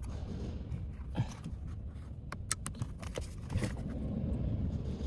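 Hand-handling noise while the exterior light switch is unclipped: a few sharp plastic clicks and scrapes over a steady low rumble.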